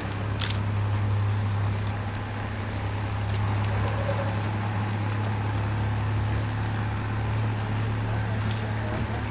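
Steady low hum, with one short sharp click about half a second in.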